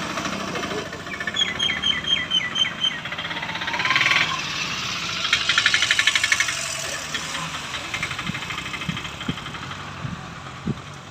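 Vehicle engine idling, with a bird calling a quick run of about six short falling notes in the first few seconds and a fast rattling trill near the middle.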